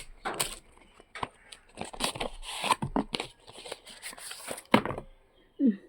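Packaging being handled and torn open by hand: a quick run of crinkles, tears and sharp clicks, busiest in the middle.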